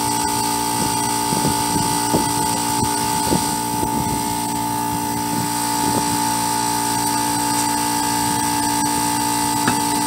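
A steady mechanical drone with a constant pitched hum, under a few light knocks and clanks as tools and a wheel are handled.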